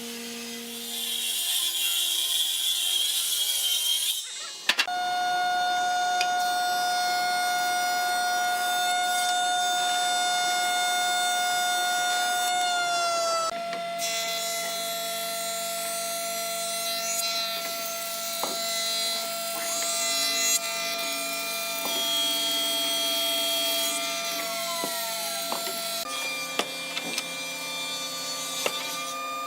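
Power saw running through hardwood: a steady high whine with a hiss of cutting. The pitch shifts abruptly a few times, about 5, 14 and 26 seconds in.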